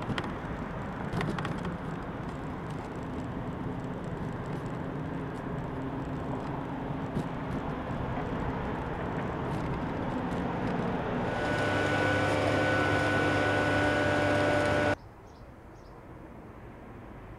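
City street traffic noise, a steady rumble that builds as an engine with a steady hum grows louder about two thirds of the way in. Near the end it cuts off abruptly to much quieter outdoor ambience.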